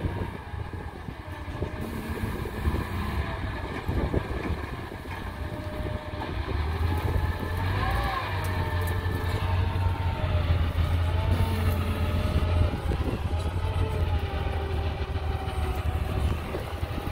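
Motor grader's diesel engine running steadily with a deep rumble as the machine moves along, grading a dirt road. From about halfway through, a higher whine wavers in pitch over the rumble.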